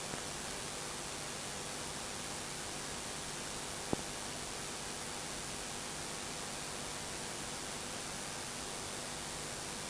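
Steady hiss of recording noise with no speech, and a single short click about four seconds in.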